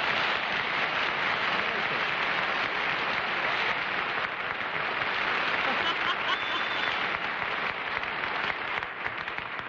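Studio audience applauding steadily, easing off near the end.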